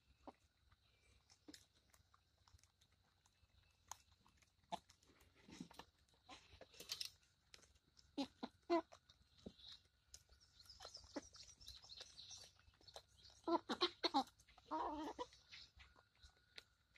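Chickens pecking feed pellets off the ground: faint, irregular pecking clicks, with a few short, low clucks about eight seconds in and again twice near the end.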